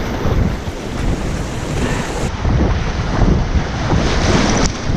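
Whitewater rapids rushing and splashing around an inflatable kayak, with wind buffeting the helmet-mounted microphone.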